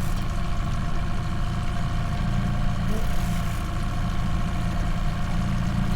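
Boat motor running steadily at trolling speed: an even low hum with a faint steady whine above it.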